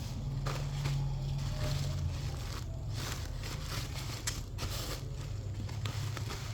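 Plastic packing wrap crinkling and crackling irregularly as it is handled and wrapped around a package, over a steady low hum.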